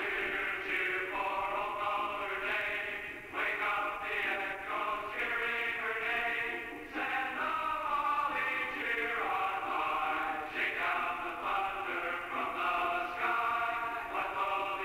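A group of voices singing a song together in held notes that move from one to the next every second or so.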